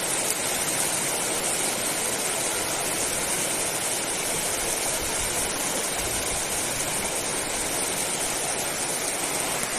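Steady rush of flowing river water, even and unbroken, with a high steady hiss running through it.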